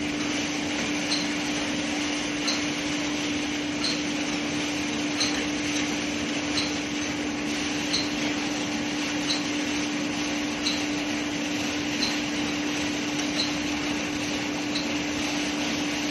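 Steady machine hum with one constant low tone, and a short tick repeating about every second and a half.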